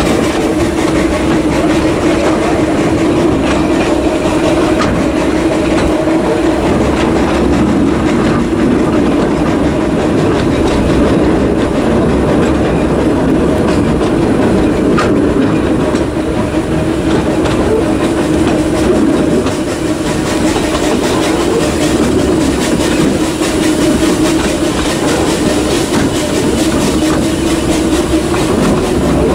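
Narrow-gauge train running steadily along the track, wheels clattering over the rail joints with a continuous rumble.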